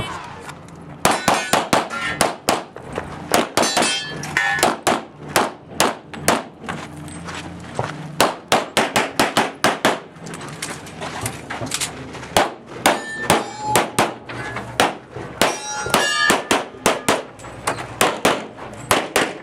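Rapid semi-automatic pistol fire in quick strings of shots. Steel targets ring after hits, twice in the middle stretch.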